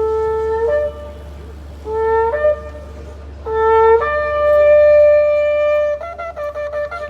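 A shofar (ram's-horn trumpet) being blown in several blasts. Each is a held low note that breaks upward to a higher note at its end. The longest is sustained for about two seconds at the higher pitch, and a quick series of short staccato blasts follows near the end.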